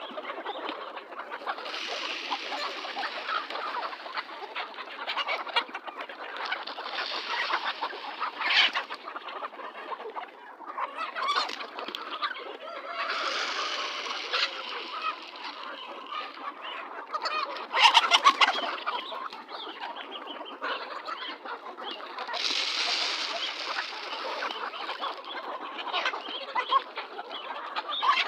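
A flock of chickens clucking and chattering continuously as they are fed, swelling louder in stretches, with a few sharp knocks or rattles, the loudest about two-thirds of the way through.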